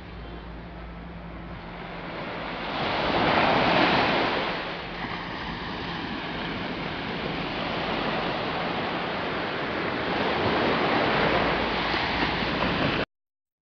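Sea waves rolling in and breaking on the shore, swelling loudest about three to four seconds in and again near the end. The sound cuts off abruptly shortly before the end.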